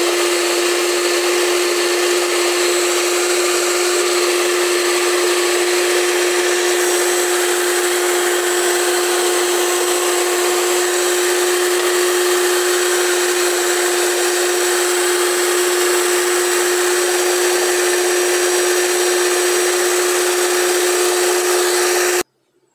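Ultra electric stand mixer running at one steady speed, its beaters whisking cake batter in a bowl: a constant motor hum with an even hiss. It stops abruptly near the end.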